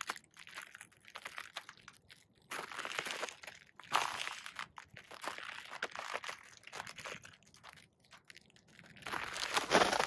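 Thin ice cracking and crunching under slow boot steps: three bursts of crackling, about two and a half seconds in, about four seconds in and near the end, with faint scattered cracks between.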